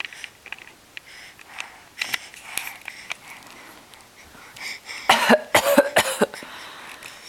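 A baby of about nine and a half months giving a quick run of short, deliberate fake coughs, about five in a row, a little past halfway through.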